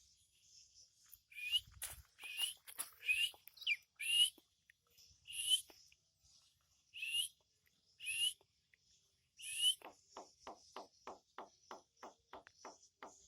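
Javan myna calling: a string of harsh, hissy calls, each with a short rising whistle, about one a second. Near the end comes a fast run of about a dozen short, lower notes.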